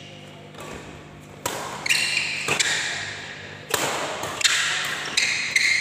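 Badminton rackets striking the shuttlecock in a fast doubles rally: about five sharp smacks roughly a second apart, each ringing on in a large hall. Court shoes squeak on the floor between the hits.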